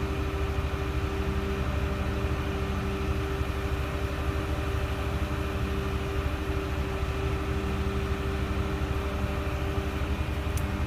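Truck-mounted concrete pump's diesel engine running steadily with a constant hum from its hydraulics as the boom swings and unfolds.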